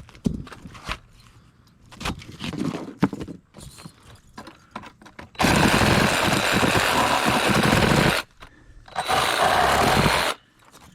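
A few knocks and clunks, then a power tool run in two loud bursts, about three seconds and then about a second and a half.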